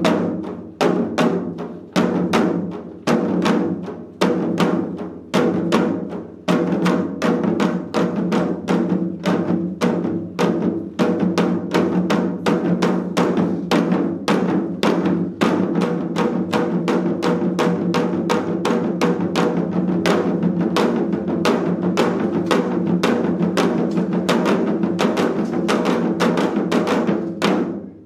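Four janggu (Korean hourglass drums) playing seoljanggu together, the double heads struck with stick and mallet. Single strokes fall about once a second, then about six seconds in the rhythm speeds up into a dense, rapid stream of strokes that breaks off near the end.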